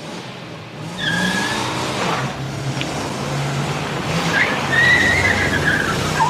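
A car engine running, with tyres squealing twice: a short squeal about a second in and a longer, wavering one in the second half.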